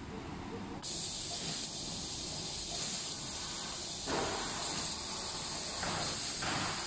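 Fiber laser cutting machine's cutting head hissing with its assist-gas jet as it cuts 2 mm stainless steel sheet. The hiss comes on about a second in, with fuller, louder rushes around four and six seconds in.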